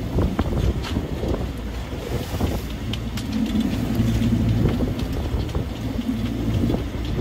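Boat under way: a steady low engine hum, clearer from about three seconds in, with wind buffeting the microphone.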